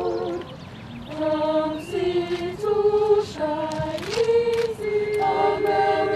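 Small mixed choir singing a cappella: a held chord breaks off, there is a short pause under a second in, then the voices move through a line of held notes into a new sustained chord near the end.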